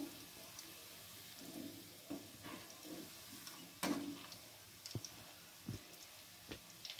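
Cauliflower pieces deep-frying in oil with a faint sizzle, while a perforated metal skimmer ladle turns them, clicking and scraping against the metal kadai. The sharpest knock comes about four seconds in, and a few lighter ones follow.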